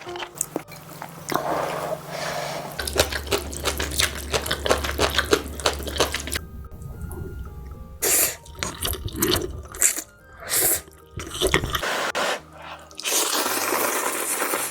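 Wet eating sounds of someone eating spicy ramen noodles, a run of slurps and quick mouth clicks, over background music with a steady low bass.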